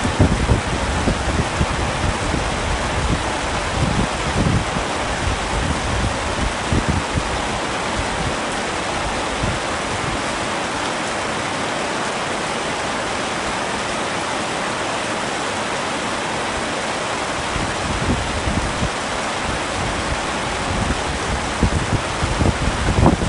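Heavy rain falling steadily on a tent, a dense, even hiss. Low rumbling swells come and go in the first several seconds and again near the end.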